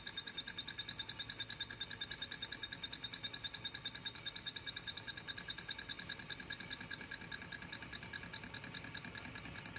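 Lathe turning a spinning steel plate: the cutting tool rings with a high-pitched squeal that pulses about eight times a second, easing slightly in the second half.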